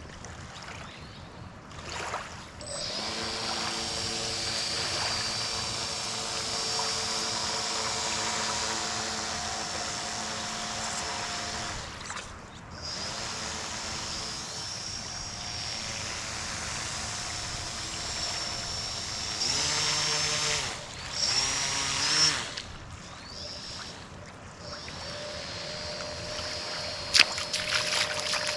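The motor and propeller of a radio-controlled model boat run with a steady whine, throttled between slow ahead and cruising speed. The pitch drops briefly about halfway in and slides up and down about two-thirds through. A single sharp click comes near the end.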